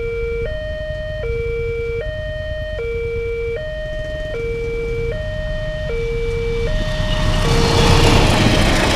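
Railway level-crossing warning alarm sounding its two-tone electronic signal, switching between a low and a higher tone about every three-quarters of a second, warning that a train is approaching. From about six and a half seconds in, the noise of the passenger train running over the crossing swells and drowns out the alarm.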